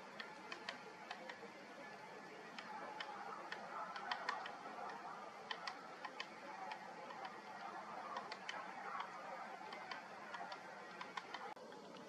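Great spotted woodpecker pecking at a cone wedged in a crevice of a tree trunk to pry out its seeds: irregular sharp taps, some in quick pairs or small runs.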